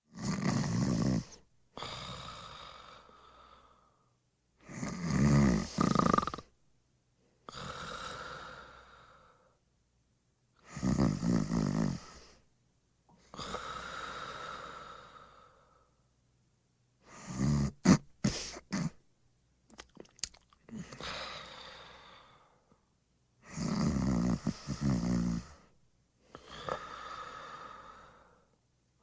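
A person snoring in sleep: about five slow breaths, each a loud snore followed by a quieter breath that fades away. About two-thirds of the way through, one snore breaks up into short snorts.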